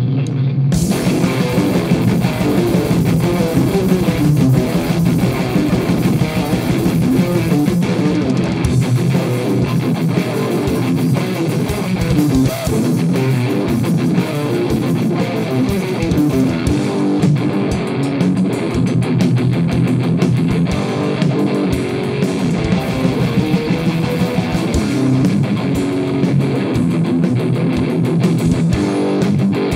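Death metal band playing live: electric guitar, bass and drums on a Pearl kit, kicking in abruptly just after the start with dense drumming.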